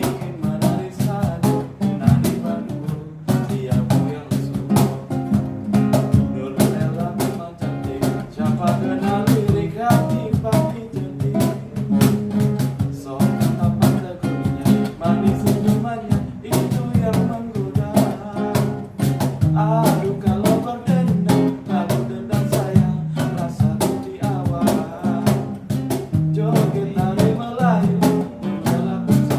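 Acoustic band music: an acoustic guitar played over a steady cajon beat, with a lead vocal singing the melody.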